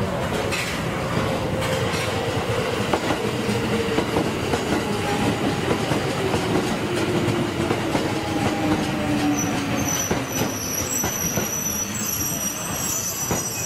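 Tokyo Metro 2000 series train pulling in and braking to a stop: a whine that falls steadily in pitch as it slows, over the clack of wheels on the rails. A high squeal comes in near the end as it comes to a halt.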